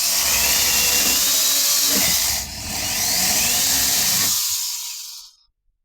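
12-inch brushless cordless electric chainsaw running at speed, dipping briefly about two and a half seconds in, then picking up again before winding down and stopping a little after five seconds.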